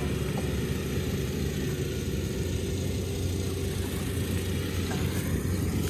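Kubota ER470 Dynamax combine harvester running steadily, its engine giving an even, unbroken low drone.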